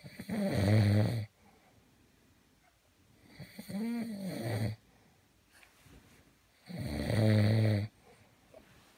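A sleeping man snoring, three long snores about three seconds apart; the middle snore has a pitched tone that rises and falls.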